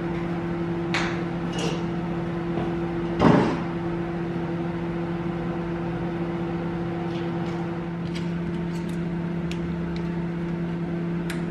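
Steady low kitchen-appliance hum, with kitchenware knocking and clattering as dishes and utensils are handled at the counter and sink. The loudest knock comes about three seconds in, and light taps and ticks follow later.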